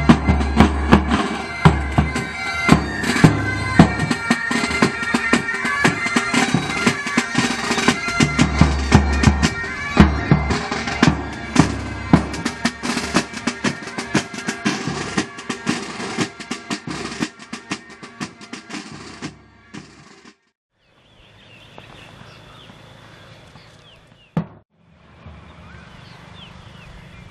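Bagpipes playing with snare and bass drums, as a pipe band. The music grows quieter and stops about twenty seconds in, leaving only faint outdoor background noise.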